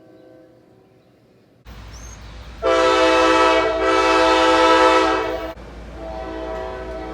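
Locomotive air horn sounding. A faint horn is heard at first, then low rumbling comes in. About a third of the way in comes a loud blast of several steady notes lasting nearly three seconds, followed by a softer horn near the end.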